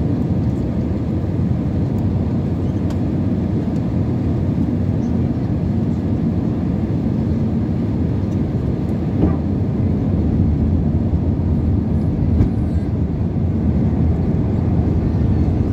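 Jet airliner cabin noise heard from a window seat: a steady low rumble of the engines and the air rushing past the fuselage during the descent to land.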